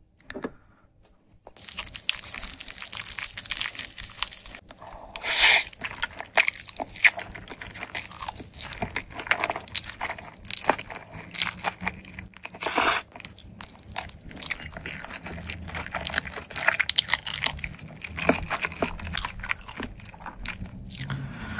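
Close-miked eating of bacon mac and cheese spaghetti: the noodles are slurped and chewed with wet mouth clicks, and several sharper, louder slurps stand out.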